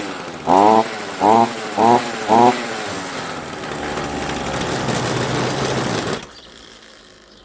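Ryobi RBC254 petrol string trimmer's two-stroke engine blipped up to speed four times in quick succession, each rev rising and falling, then held running steadily for a few seconds before it cuts off suddenly about six seconds in. It starts and revs cleanly with the air filter refitted.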